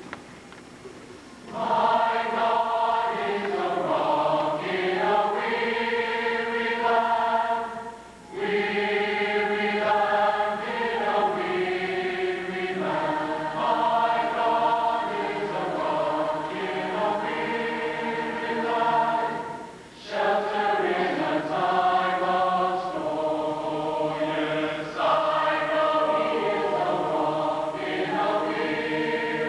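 A large choir of young men's voices singing together in sustained phrases. The singing comes in about a second and a half in and breaks briefly between phrases about eight and twenty seconds in.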